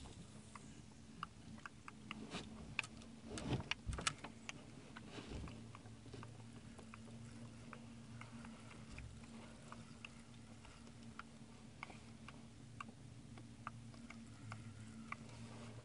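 Spinning reel being cranked to retrieve the line, giving scattered light clicks, with a few louder knocks about two to four seconds in, over a low steady hum.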